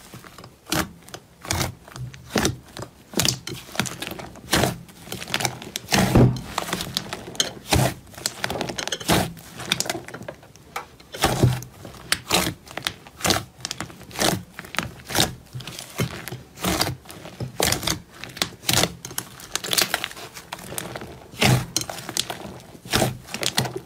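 Slime being squeezed and pressed by hand, making an irregular run of sharp clicks, pops and crackles.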